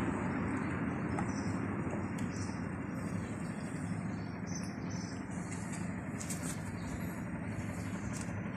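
Steady outdoor background rumble with short, scattered bird chirps high above it.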